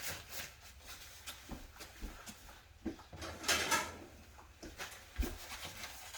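Soft scattered taps and light rustling from hands working a fish fillet on a cutting board, with a louder brushing rustle about three and a half seconds in, as the sea bass fillet is wrapped and blotted dry.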